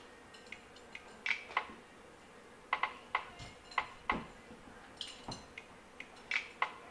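Irregular sharp metallic clinks, a dozen or more, each with a brief ring, as a tomahawk is spun and caught in the hands.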